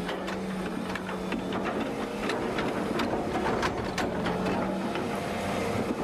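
Diesel engine of a digging machine running steadily while it digs, with irregular clanks and scrapes of the bucket working the ground.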